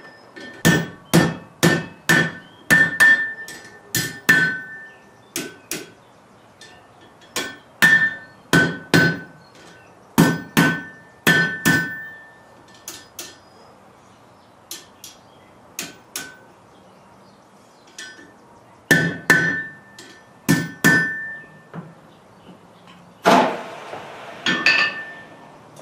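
Blacksmith's hammer striking metal on an anvil in runs of blows, about two or three a second, each blow with a short metallic ring. Pauses fall between the runs, and a brief rougher, noisier sound comes near the end.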